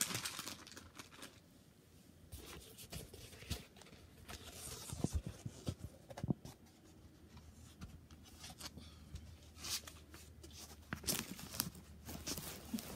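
Rustling and handling of a diamond painting canvas as it is lifted and unfolded, with scattered light clicks and taps, louder in two stretches.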